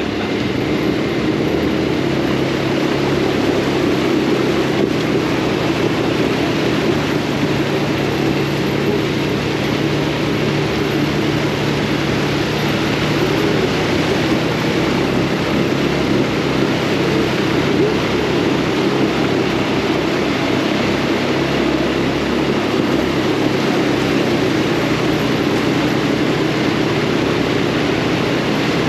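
Off-road buggy's engine running as the buggy drives along: a steady drone that wavers slightly in pitch, with a constant hiss over it.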